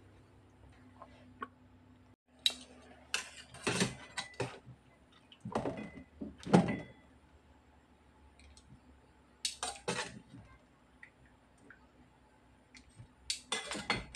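Hands laying blanched vanilla beans on a cloth and wrapping them: short bursts of rustling and light clatter in four clusters, over a faint steady hum.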